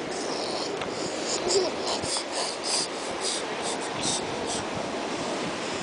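A plastic water bottle crinkling in a toddler's hands as the cap is twisted: a string of short, sharp crackles over a steady hiss, with one brief faint vocal sound from the child.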